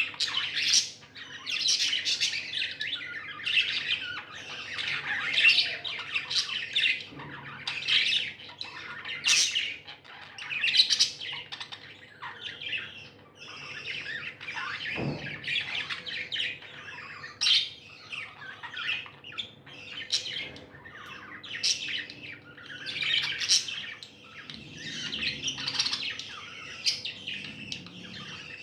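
Pet budgerigars chirping and chattering without a break, a dense stream of short, high calls and squawks.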